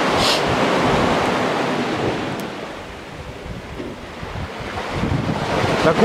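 Black Sea surf washing onto a pebble beach, loud at first, easing off around the middle and building again near the end, with wind buffeting the microphone.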